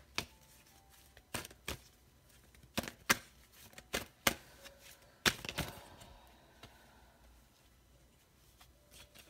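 Deck of tarot cards being handled and shuffled by hand: a string of sharp card slaps and taps, about ten of them in the first six seconds, then only faint handling.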